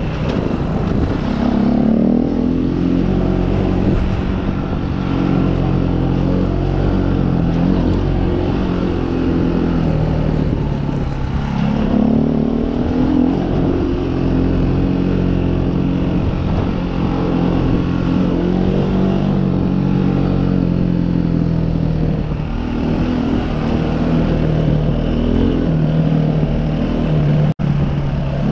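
Dirt bike engine running under load on a rough gravel track, its pitch climbing and falling several times as the rider opens and closes the throttle.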